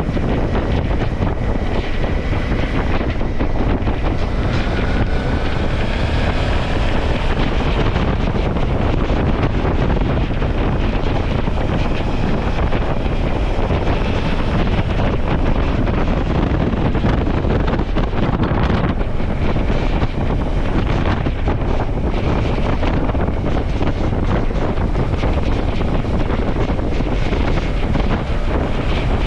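Heavy wind buffeting on the microphone of a moving Suzuki V-Strom motorcycle, with the engine faintly underneath; its pitch rises and falls briefly a few seconds in.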